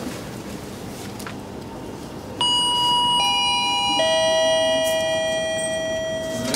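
A three-note descending chime: three ringing tones struck about a second apart, each lower than the last, starting a couple of seconds in and overlapping as they sustain.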